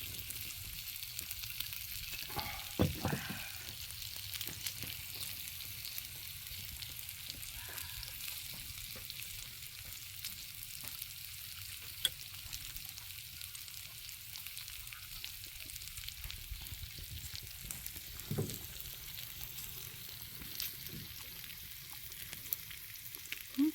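Kimchi fried rice frying in a pan, a steady sizzle, with a few short knocks now and then, the loudest about three seconds in.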